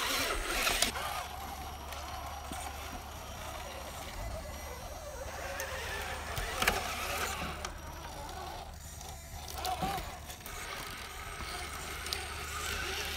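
Small electric motors and geared drivetrains of 1/10-scale RC crawler trucks whirring as they creep over logs, with occasional sharp knocks of tyres and chassis on the wood.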